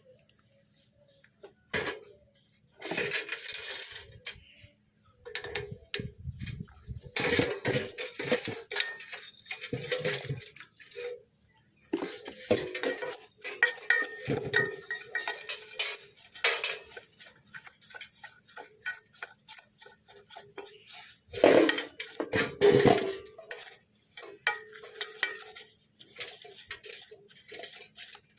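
Metal gearbox parts being handled, clinking and clattering irregularly with short ringing knocks. The loudest clatter comes about three-quarters of the way through.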